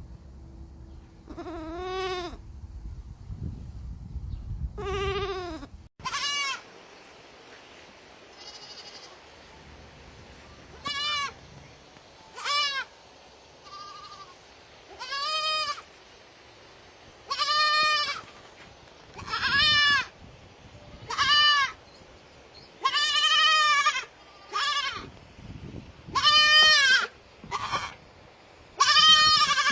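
Baby goats (kids) bleating over and over: two longer bleats, then, after an abrupt change of recording about six seconds in, a long series of short, quavering, high-pitched bleats coming every second or two.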